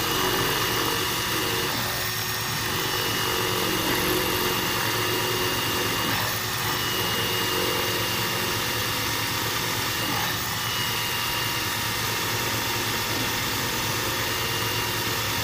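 Cordless drill running continuously at a steady whine, its bit grinding into the mortar joint of a brick wall. It is a plain drill without hammer action, so the boring into masonry is slow and hard going.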